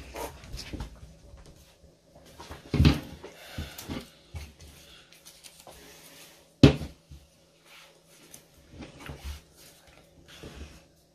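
Tabletop handling sounds as paper stars are glued onto thread: scattered light knocks and paper rustles, with one sharp knock on the table about six and a half seconds in.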